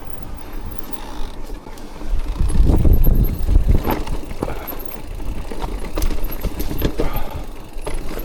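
Mountain bike riding down a wet trail: tyres rolling and the bike rattling with repeated knocks over roots and stones, and a low rumble that swells about two to four seconds in.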